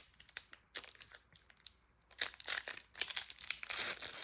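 Foil Pokémon booster pack wrapper crinkling in the hands as a pack is handled. There are scattered crackles at first, then a denser run of crinkling from about two seconds in.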